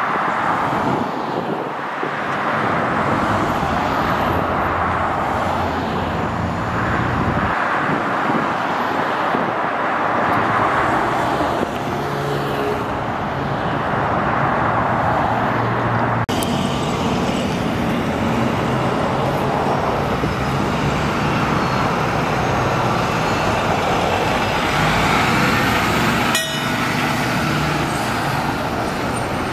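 Steady freeway traffic noise as cars roll past. About halfway through it gives way to a fire ladder truck's diesel engine running as the truck drives past, with a brief click near the end.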